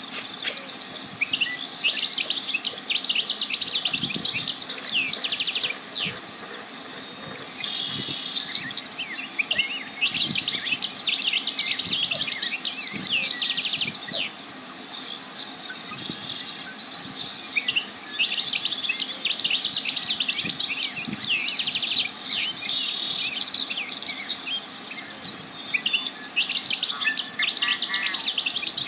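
Several songbirds singing in overlapping rapid trills and chirps, with a few short lulls, over a faint steady high tone.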